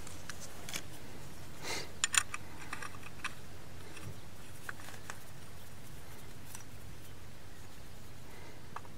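Small clicks and rustles of hands handling a brass pipe fitting and a roll of PTFE thread-seal tape, with a cluster of sharp clicks about two seconds in and a few scattered ticks after, over a steady faint hiss.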